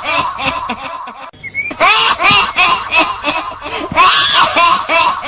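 Mak Lampir-style witch's cackle: a shrill woman's laugh in quick repeated rising-and-falling pulses, breaking off briefly a little over a second in and then starting again.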